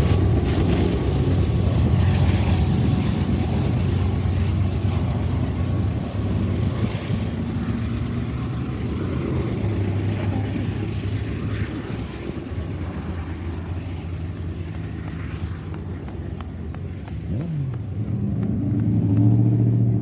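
Union Pacific diesel locomotive, pushing at the rear of a freight train as distributed power, running with a steady low drone over the rumble of rolling freight cars, fading as the train moves away. Near the end another vehicle's engine rises as road traffic crosses.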